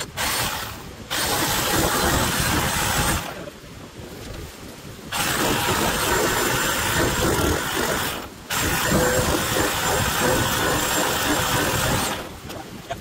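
Power saw cutting through tough stock in three runs of a few seconds each, stopping between runs.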